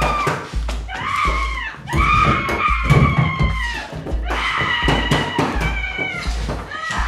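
Horror film score: a low throbbing pulse repeating about one and a half times a second under high, wavering, screeching tones that swell and break off several times.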